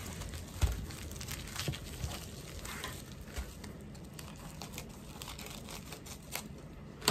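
Plastic packaging crinkling and rustling as a bubble-lined plastic bag is handled and worked open by hand, with a light knock on the table about half a second in.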